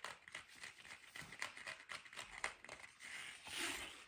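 Faint rustling and crinkling with scattered small clicks and taps, a little louder near the end.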